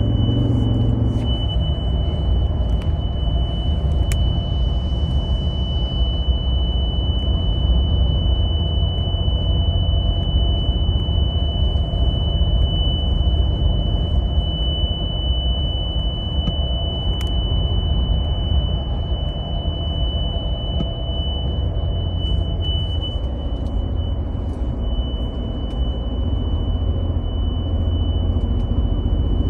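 A loud, steady, high-pitched tone holding one pitch without a break inside a 2023 Toyota Tundra Platinum's cabin, over the low rumble of the truck running at highway speed. It is a fault sound that goes on for minutes and stops only when the truck is switched off.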